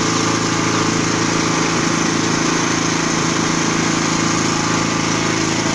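Small petrol engine running steadily at a constant speed, driving a sawdust machine.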